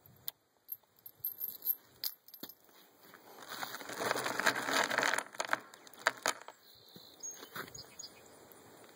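Taurus Tracker 990 .22 LR revolver being reloaded: light metallic clicks and rattles of cartridges handled and fed into the open cylinder, with a longer rustling stretch in the middle as more rounds are fumbled out.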